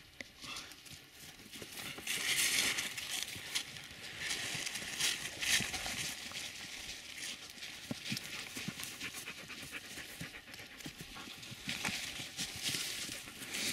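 Dogs digging and scratching through dry grass and leaves, with panting.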